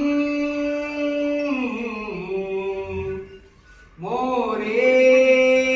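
Mangalashtak, the Marathi wedding verse, sung solo by a man in long drawn-out notes. A held note slides down about a second and a half in, there is a short pause for breath past three seconds, then a new note glides up and is held.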